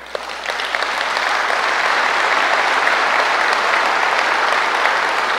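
Large audience applauding, the clapping swelling over the first second and then holding steady.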